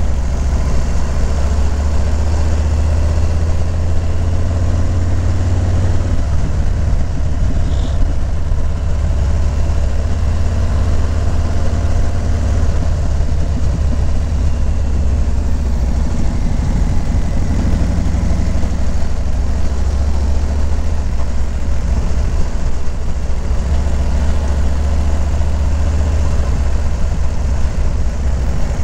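Harley-Davidson Low Rider S (FXLRS) V-twin engine running steadily with a deep low note, its pitch shifting slightly now and then.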